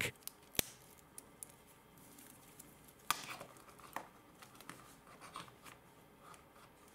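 Faint handling sounds of a stainless steel watch bracelet and its folding clasp in cotton-gloved hands: a sharp click about half a second in, then scattered small clicks and rustles.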